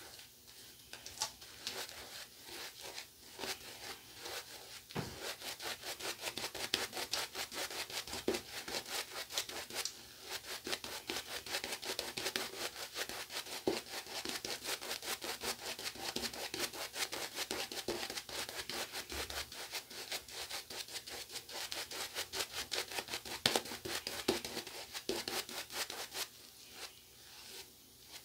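Two-band badger shaving brush (Yaqi Robin 24mm) scrubbing soap lather onto two days' stubble, the bristles rubbing in rapid, rhythmic back-and-forth strokes. The brushing stops near the end.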